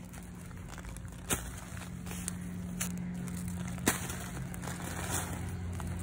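A gloved hand digging potting soil out through the flap of a fabric grow bag: soil crumbling and rustling against the felt. Two sharp taps come about a second in and about four seconds in, over a steady low hum.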